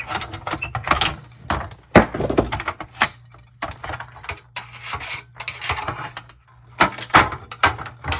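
Plastic clicking, cracking and knocking as a large screwdriver pries a tightly stuck plastic sheet out of an LCD monitor, with a run of sharp snaps and the loudest cracks about two seconds in and again near seven seconds.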